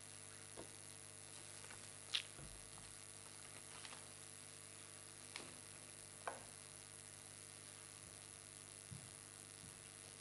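Near silence: room tone with a faint steady electrical hum and a few soft, scattered clicks and knocks.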